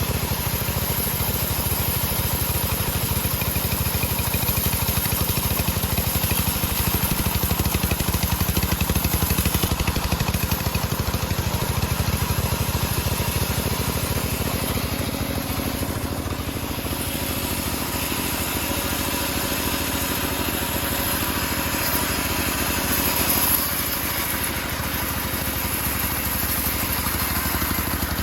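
Homemade bandsaw sawmill running steadily, its engine driving the blade through teak wood.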